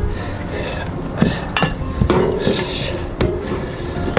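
Ratchet wrench and socket working a bolt on a chrome muffler's mounting bracket: a few sharp, irregular metallic clicks and clinks.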